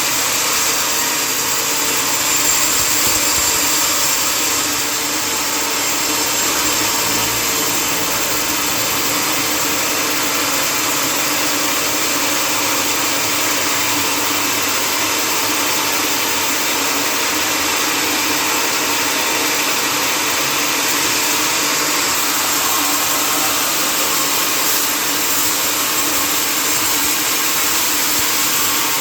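Sawmill machinery running steadily, a loud, even mechanical drone with a strong hiss and no breaks.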